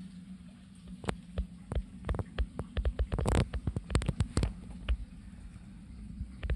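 A steady low electrical hum, with irregular clicks and knocks from a handheld phone being handled and carried while panning, thickest in the middle few seconds, with a brief rustle a little past three seconds in.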